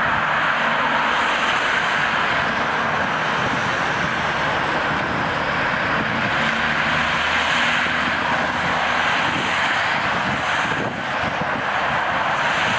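Steady city background noise: distant traffic running, with a faint low engine drone underneath.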